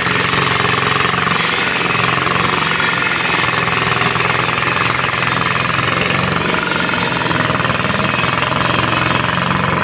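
Jackhammer-type breaker hammering rapidly and without pause, over the steady hum of an engine.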